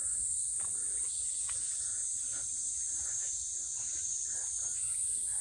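Steady, high-pitched chorus of summer insects, unbroken throughout.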